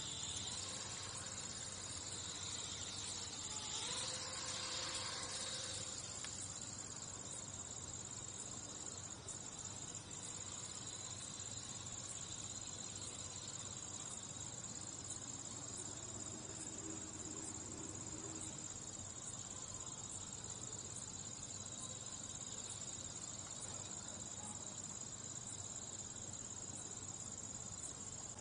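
Crickets chirping in a steady, unbroken high trill.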